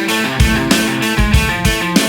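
Instrumental rock music: guitars over a steady drum beat, with no vocals.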